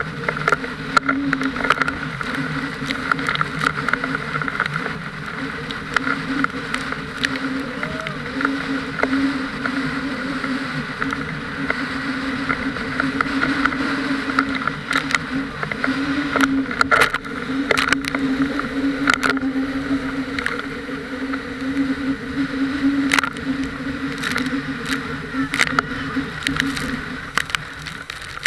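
A towing motorboat's engine drones steadily while an inflatable banana boat is pulled fast over choppy water, with rushing water and spray. Scattered sharp slaps and ticks come from water hitting the boat and camera.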